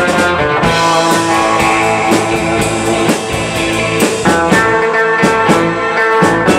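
Live rock band playing: electric guitars with held, sustained notes over a drum kit keeping a steady beat.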